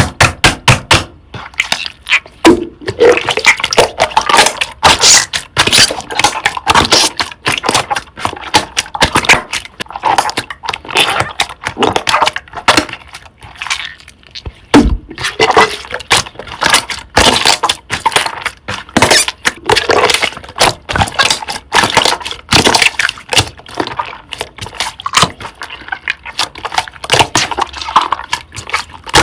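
Thick creamy slime being squeezed and pressed by hand, giving rapid, irregular clicking and crackling.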